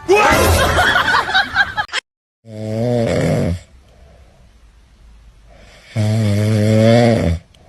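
Two long snores about three and a half seconds apart, each a low, wavering drone, starting about two and a half seconds in. They follow a loud, noisy sound in the first two seconds that cuts off suddenly.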